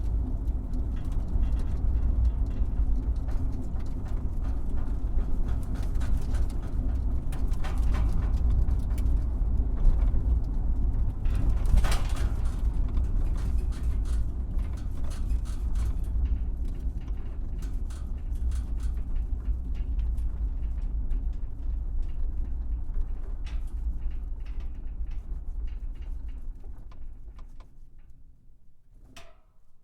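Car driving over a bumpy road: a steady low rumble of the tyres and suspension with scattered knocks and rattles from the body, a sharper jolt about ten and twelve seconds in. The rumble dies away over the last few seconds.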